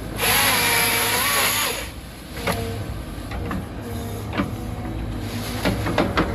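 Hydraulic grapple saw on a CAT 311F excavator buzzing through a tree stem for about two seconds at the start, its pitch dipping and rising under load. After that the excavator's engine and hydraulics run steadily, with a few sharp cracks near the end.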